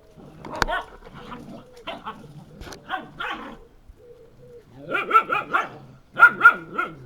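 Puppies yipping and whining in short high-pitched cries, building to two runs of rapid yelps near the end. A sharp click about half a second in.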